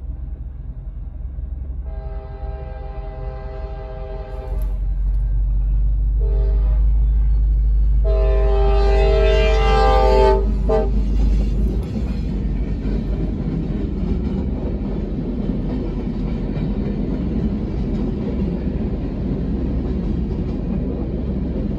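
Diesel freight locomotive sounding its horn for a grade crossing: a long blast, a short one, then a loud long blast as it passes close by, over the low rumble of its engine. The freight cars then roll past over the crossing with a steady rumble and wheel clatter.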